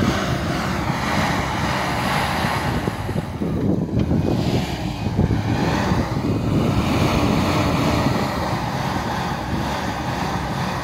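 Toyota Land Cruiser 80 series engine running steadily under load as the four-wheel drive works through deep snow, with wind buffeting the microphone.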